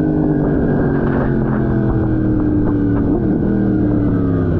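Sport motorcycle engine heard from on board while riding, its note falling slowly and steadily as the bike eases off, with wind rushing on the microphone.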